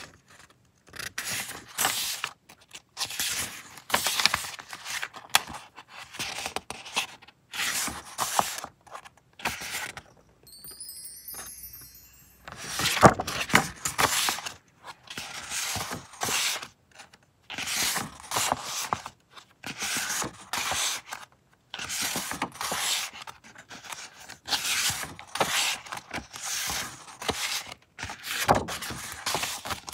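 Sheets of printed decorative paper being turned over and handled one after another, a crisp rustle with each sheet about once every second or so.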